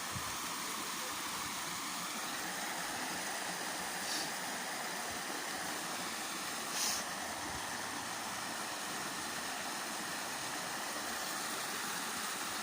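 Steady rushing of flowing river water, an even hiss without pitch, with two short brighter sounds about four and seven seconds in.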